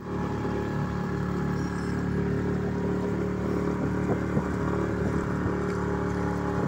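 Motorboat engine running at a steady speed, an even drone with a couple of light knocks about four seconds in.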